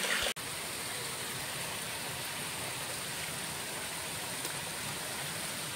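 Steady rushing of water flowing among the boulders of a rocky stream bed, after a brief cut-out near the start.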